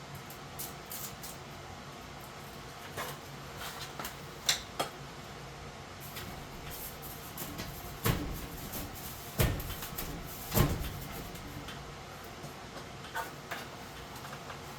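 Scattered knocks, scrapes and clatters from hands-on work pulling out an HVAC floor vent and its duct, with three heavier thuds about eight to eleven seconds in, over a faint steady hum.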